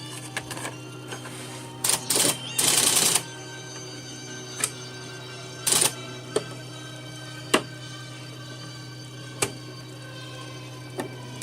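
Remington Remstar electric typewriter running with its motor humming steadily. Single key strikes come every second or two. Longer mechanical rattles come around two to three seconds in and again near six seconds.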